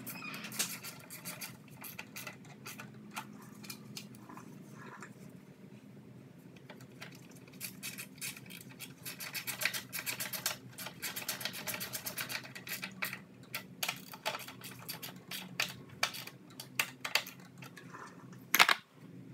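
Hand ratchet clicking in quick runs while driving 8 mm bolts into the top of a lawn mower engine, with one sharp knock near the end.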